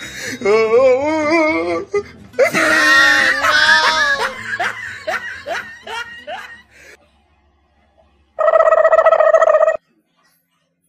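A person laughing in a wavering, warbling voice, loudest a few seconds in and fading out by about seven seconds. Later a steady, even-pitched tone sounds for just over a second.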